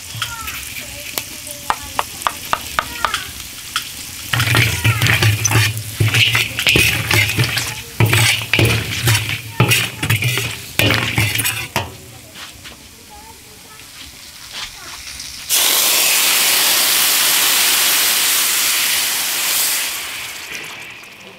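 A metal ladle stirs spices frying in oil in a steel wok, with light ticks at first, then loud rhythmic scraping and clattering against the pan. About two thirds of the way in, a liquid hits the hot oil and sets off a sudden loud sizzle that hisses steadily and fades near the end.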